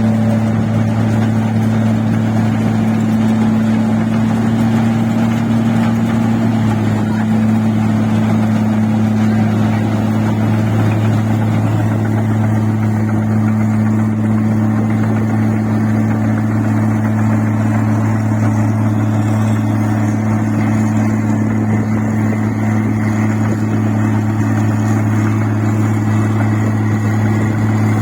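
The engine of a rice machine running at a steady speed: a loud, constant low hum, with a slight shift in pitch about six seconds in.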